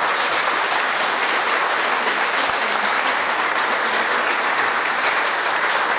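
A church congregation applauding steadily.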